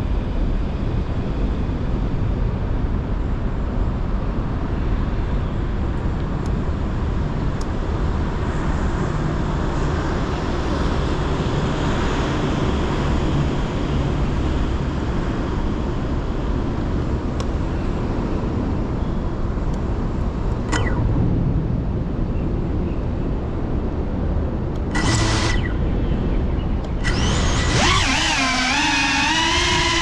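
Steady low rumble. In the last couple of seconds a GEPRC Cinelog 35 cinewhoop's motors spin up into a wavering multi-tone whine as the quad lifts off.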